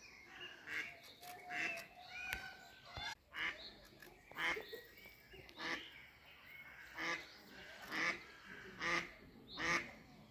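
Waterfowl calling over and over, a short honking call about once a second.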